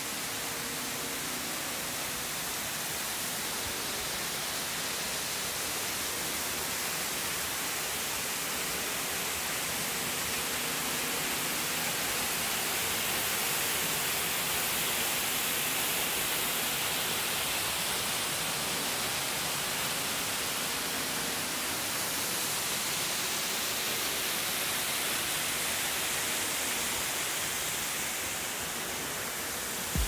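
Fudo Waterfall's water falling and splashing, a steady, even rush that barely changes.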